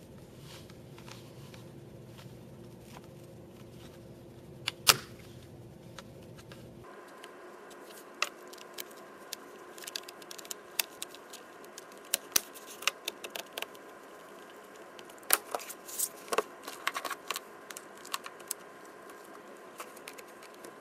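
Irregular sharp clicks and crinkling at close range, sparse at first and then coming thick and fast from about eight seconds in. A steady low hum underneath stops abruptly about seven seconds in.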